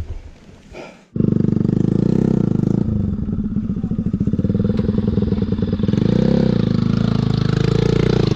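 Motorcycle engine that comes in suddenly about a second in and then runs loud and steady, rising briefly in pitch twice as it is revved.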